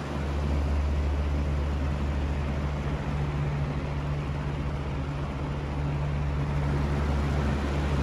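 Aerospeed box fan running: a low steady motor hum over the rush of air through the grille, coming in louder right at the start.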